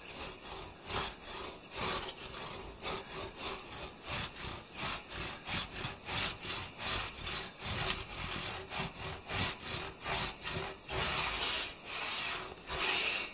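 One-man crosscut saw cutting through a maple log by hand, bucking it into firewood rounds: a steady run of rasping push-and-pull strokes, about three a second, turning to longer, slower strokes near the end.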